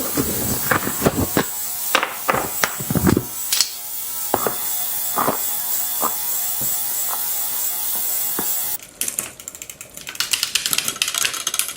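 A small hand-held power tool buzzes steadily for about nine seconds, with sharp clicks along the way, as it backs out the bicycle's disc rotor bolts. It stops suddenly and is followed by fast, uneven ratchet-like clicking.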